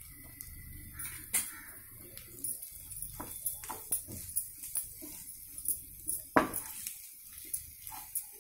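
A spatula scraping and knocking against a frying pan in short, irregular strokes as a thick mashed-potato filling is stirred, with one louder knock about six seconds in.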